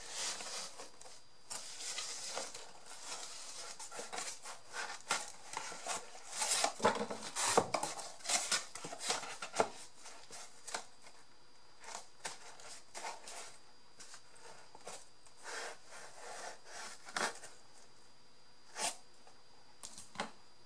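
Hands working craft materials on a tabletop: paper and card rustling and rubbing, with irregular small clicks and knocks, busiest and loudest about a third of the way through.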